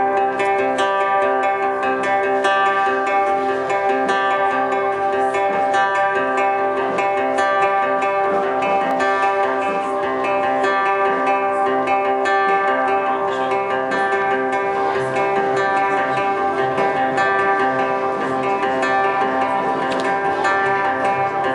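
Acoustic guitar played live through a PA, strummed chords ringing over a steady sustained drone as an instrumental intro with no vocals.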